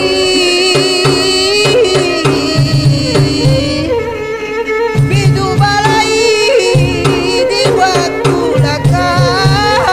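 Background music: a wavering melody over a steady drum beat, with the drums dropping out for about a second around four seconds in.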